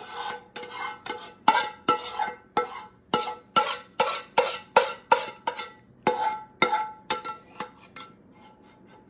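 A spoon scraping sauce out of a saucepan in quick repeated strokes, about two a second, each with a short ring from the pan; the strokes fade to light ticks near the end.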